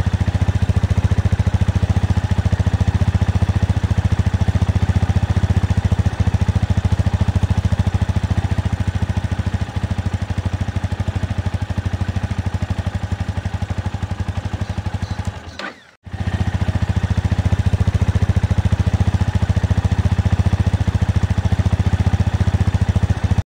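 Motor-running sound effect: a loud, steady machine drone with a fast even pulse. It sags and cuts out for an instant about 16 seconds in, then starts again.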